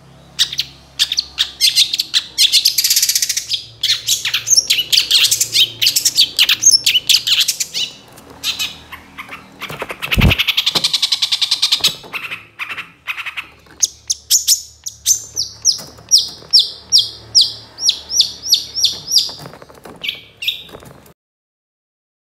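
Long-tailed shrike (cendet) singing a fast, harsh, chattering song of varied high notes, then a run of about a dozen quick, evenly repeated notes, cutting off abruptly near the end. A single sharp knock sounds about ten seconds in.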